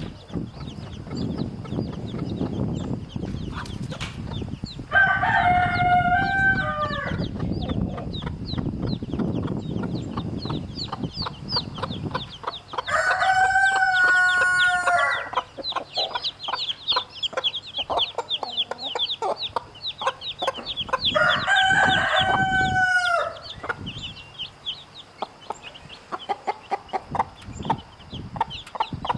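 A rooster crows three times, each crow about two seconds long and several seconds apart, over the continuous high-pitched peeping of young chicks.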